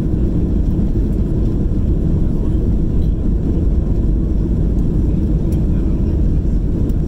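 Inside the cabin of an Airbus A320 on its takeoff roll: its IAE V2500 turbofan engines at takeoff thrust make a loud, steady low rumble.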